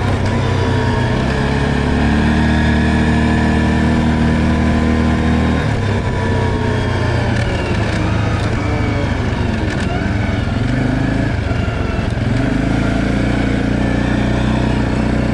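Stels Leopard ATV engine running under way, with a steady note that drops about six seconds in, wavers up and down for several seconds, then settles steady again near the end.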